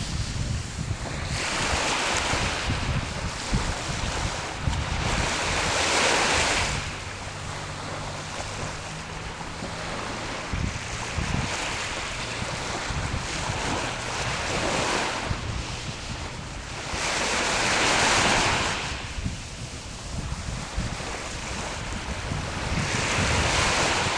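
Sea waves washing onto the shore, the surf swelling and falling back every few seconds with four louder surges, over a steady low rumble of wind on the microphone.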